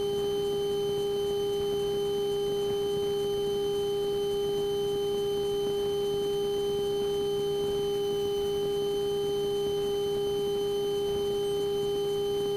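Steady electrical whine on a light aircraft's intercom audio: one unchanging tone with fainter overtones above it, over a faint hiss.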